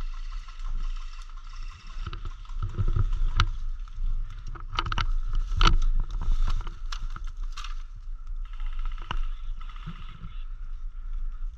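Low wind rumble and handling noise on a body-worn microphone as the player moves, with several sharp clicks and knocks clustered in the middle.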